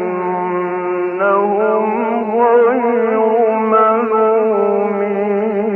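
A male Quran reciter's voice chanting in the melodic mujawwad style, drawing out long ornamented notes that waver up and down. It comes from an old recording with a narrow, dull sound and no high end.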